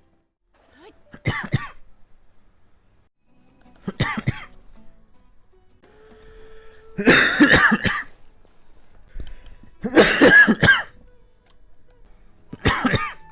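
Coughing in five separate bouts, each a quick run of two or three harsh coughs. The bouts about seven and ten seconds in are the longest and loudest.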